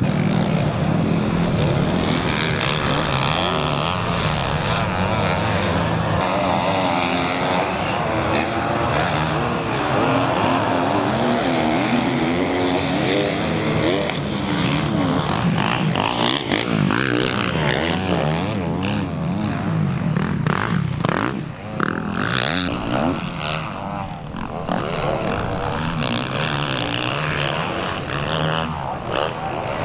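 Several motocross dirt bike engines running on the track, revving up and down in waves as riders accelerate and shift. A cluster of short sharp crackles comes about midway.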